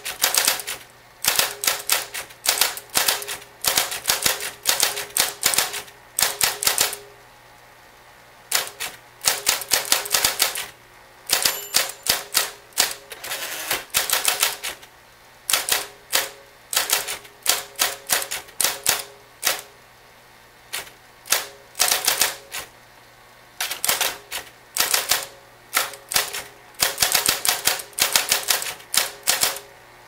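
Cartridge AC II electric portable typewriter typed on in fast runs of sharp key strikes, several a second, with short pauses between runs. The machine's motor hums steadily underneath.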